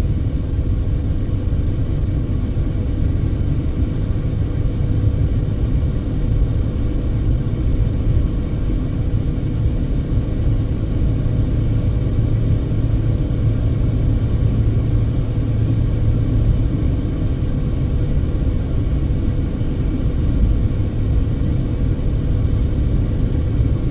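Steady road and engine rumble of a car cruising on a highway, heard from inside the cabin, with a faint steady hum under it.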